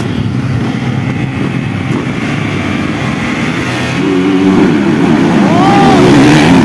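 A pack of motocross bikes running and revving at the starting gate. About four seconds in the engines rev hard, pitch sweeping up and down, as the bikes launch off the line, and the sound grows louder toward the end.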